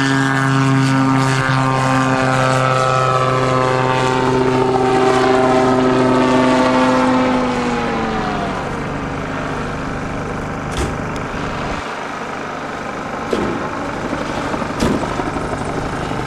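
Gyroplane's engine and pusher propeller running steadily at high power, then about eight seconds in its pitch falls away as the engine fails on the steep climb. After that, only a rushing noise remains, with a few sharp knocks.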